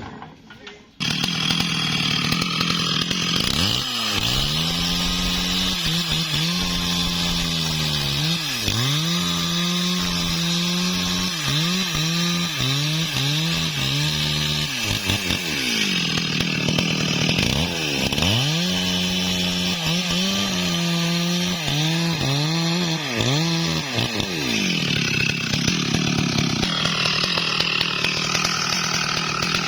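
STIHL MS 382 two-stroke chainsaw starting up about a second in and running at high revs while cutting into a bayur (wadang) tree, its engine pitch dipping again and again as the chain bites into the wood and recovering in between.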